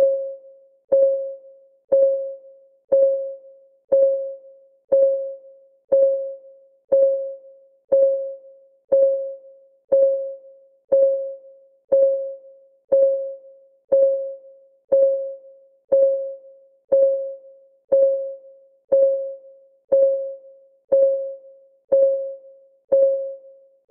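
Countdown timer's clock-ticking sound effect: a steady tick once a second, each tick a short click with a brief ringing tone that fades quickly.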